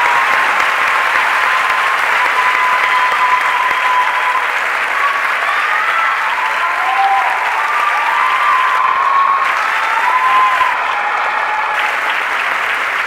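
Theatre audience applauding steadily, with a few wavering calls sounding over the clapping.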